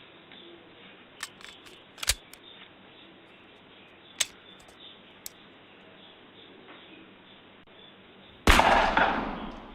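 A few sharp clicks, then one loud gunshot bang about a second before the end that rings and dies away over about a second.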